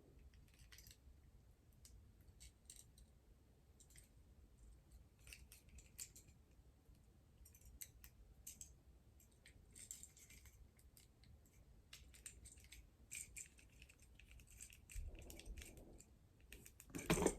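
Faint, scattered clicks and light taps of a plastic Transformers action figure and its cannon parts being handled and positioned.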